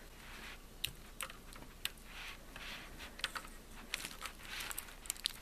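Fingernails picking at the edge of the protective plastic film on a graphics card's cooler shroud: scattered small clicks and soft plastic rustling.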